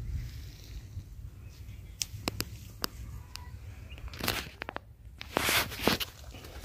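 Dry leaves and twigs crackling and rustling in scattered sharp snaps and short rustles, over a low rumble on the microphone.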